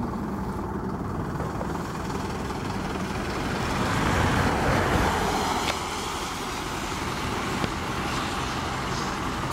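Fire engines' diesel engines and tyres on a wet road as the trucks drive past, loudest about four to five seconds in as one goes by close.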